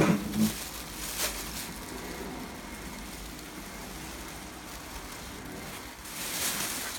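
Cardboard shipping box being tipped over and handled on a wooden workbench: a knock and scrape at the start, another sharp knock about a second in, then rustling and scraping of cardboard and foam packing, louder near the end.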